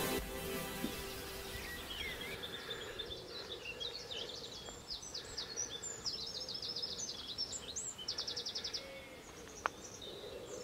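Songbirds singing: a run of short high chirps and whistles, with a fast even trill about eight seconds in, over a faint steady outdoor hiss. A single sharp click sounds near the end.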